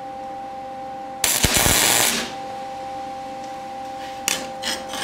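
Gasless flux-core (Innershield) wire-feed welding arc crackling for about a second as a tack weld is struck, about a second in, then a few short crackling bursts near the end. A steady electrical hum runs underneath.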